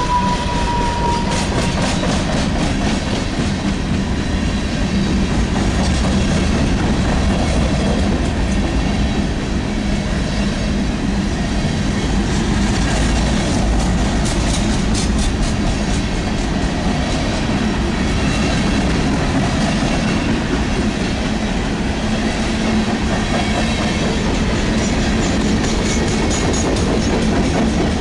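Freight train of open-top hopper cars rolling past close by: a steady rumble of steel wheels on rail with the clickety-clack of wheels over rail joints. A short high wheel squeal sounds in the first second.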